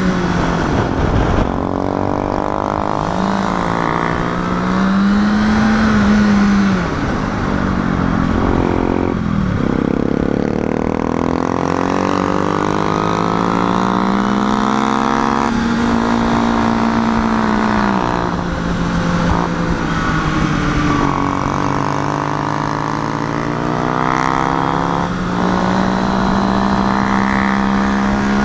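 Sport bike engine under way, heard from the rider's seat: its pitch rises and falls with the throttle and drops sharply at gear changes several times, over a steady rush of wind and road noise.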